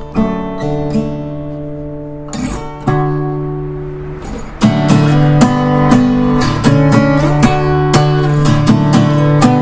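Tagima Dallas steel-string acoustic-electric guitar played solo. A few chords are strummed and left to ring and fade, then about halfway through a louder, steady rhythmic strumming pattern starts.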